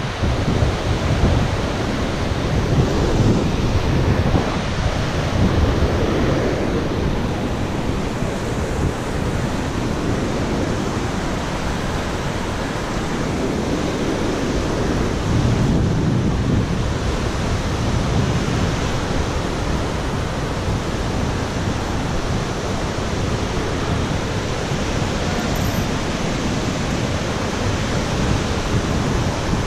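Wind buffeting a GoPro's microphone over a steady rushing noise, swelling into heavier low rumbles a few times.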